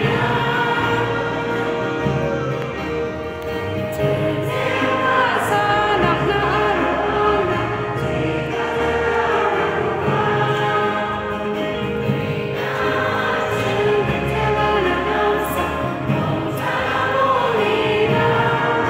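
A choir singing a Garo-language hymn to instrumental accompaniment, for an entrance dance.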